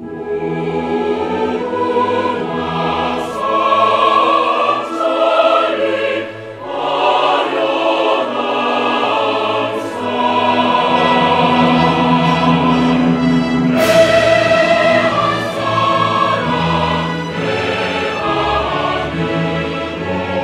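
Choral music: a choir singing long held notes.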